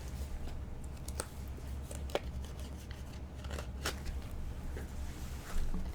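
Cardboard trading cards being handled and flipped one at a time: scattered light clicks and brief slides of card on card, over a steady low hum.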